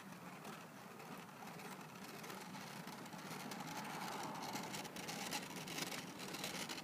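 RipStik caster board wheels rolling over asphalt: a quiet, steady gritty rolling hiss that grows louder for a few seconds past the middle as the board passes close.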